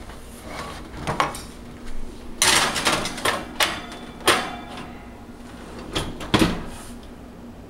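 A metal baking sheet of cookie dough being put into an oven: a series of sharp metallic clanks and knocks, with a longer rattle and scrape about two and a half seconds in, and the oven door knocking shut near the end.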